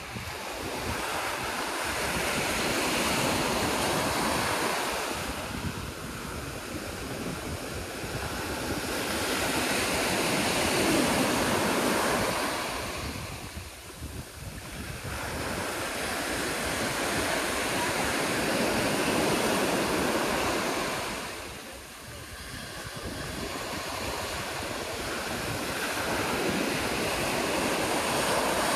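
Small surf breaking and washing up a sandy beach, a hissing rush that swells and fades about every seven or eight seconds. Wind rumbles on the microphone underneath.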